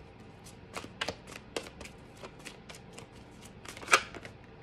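Tarot cards being handled: a string of light, irregular clicks and snaps as cards are fingered through and one is drawn from the deck, with one sharper snap near the end.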